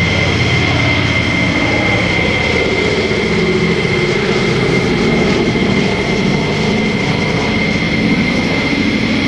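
B-17G Flying Fortress's four Wright R-1820 Cyclone radial engines droning steadily as the bomber passes low overhead and flies on.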